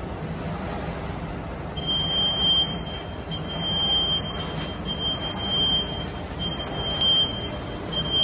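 Plastic apron making machine running with a steady hum. About two seconds in, a high-pitched electronic buzzer starts beeping in long single-tone beeps, about one every one and a half seconds.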